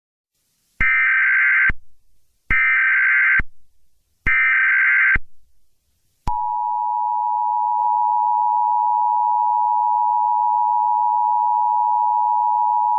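Emergency Alert System test tones: three short bursts of SAME digital header data, each just under a second, then about six seconds in the steady two-tone EAS attention signal (853 and 960 Hz together) starts and holds.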